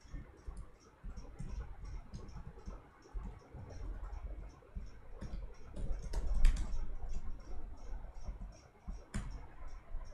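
Typing on a computer keyboard: quick, irregular key clicks, with a few louder strokes.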